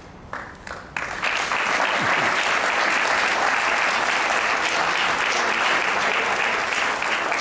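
Seated audience applauding: a few scattered claps, then steady full applause from about a second in.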